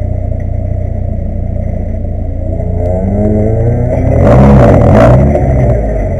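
Renault Mégane rally car's engine heard from inside the cabin, idling steadily for about three seconds, then revved up and down in a few blips, loudest about four to five seconds in, as the car pulls forward to the stage start.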